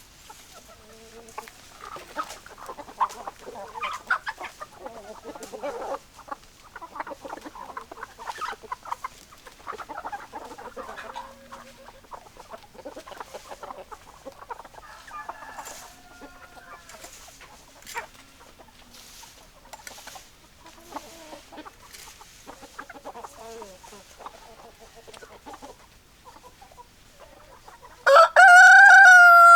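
Chickens clucking, with many short overlapping calls. Near the end a rooster crows loudly in one long call that falls in pitch at its close.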